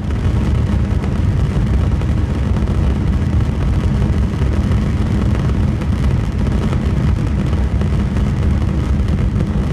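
A loud, steady low rumble of dense noise that sets in abruptly and holds without a break.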